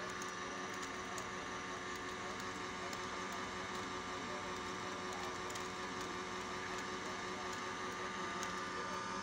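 Electric screw oil press running steadily while pressing flaxseed: a constant machine hum with a few held tones.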